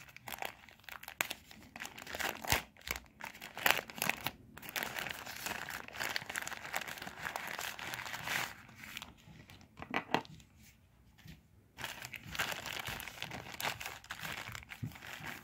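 Thin plastic bag crinkling and rustling in irregular bursts as it is handled and opened to unwrap a small item, with a short lull about ten seconds in.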